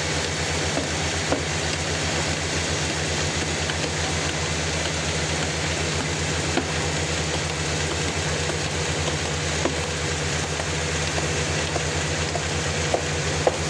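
A sawmill running steadily: a low, fast-pulsing engine drone under an even hiss, with a few faint sharp ticks.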